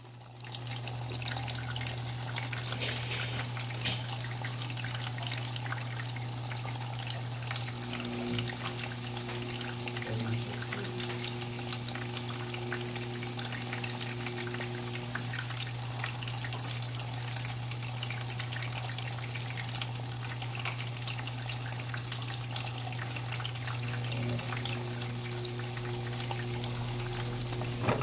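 KMC washing machine filling with water: a steady rush of water with a constant low hum, joined twice by a higher humming tone.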